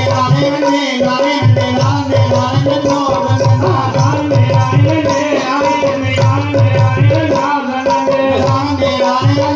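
Music for a valli kummi Tamil folk dance: singing over a steady drone with regular low drum beats.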